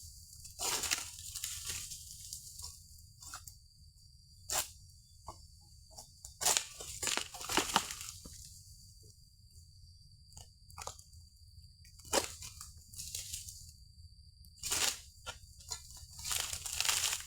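Egrek, a pole-mounted sickle, cutting and tearing through oil palm frond stalks: irregular crunching cuts a second or a few seconds apart.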